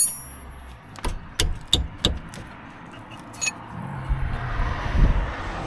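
Steel wrenches clinking and knocking against a brake caliper's guide-pin bolts as they are loosened: a ringing metal clink at the start, then a handful of sharp taps and knocks. From about four seconds in, a steady rising noise with a low thump comes in under it.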